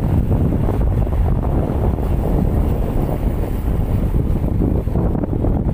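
Wind buffeting the microphone in a steady low rumble while riding along a concrete road, with the running noise of the vehicle mixed in.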